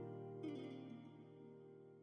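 Soft instrumental background music with plucked-string notes; a note sounds about half a second in and rings out, slowly fading.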